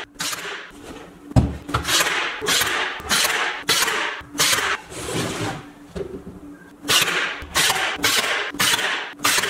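Ryobi 18-gauge brad nailer firing brads into plywood drawer sides, one sharp shot after another at about two a second, with a pause of about a second past the middle.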